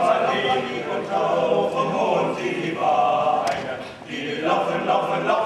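A five-man male a cappella group singing a German song in close harmony, with a short break for breath about four seconds in.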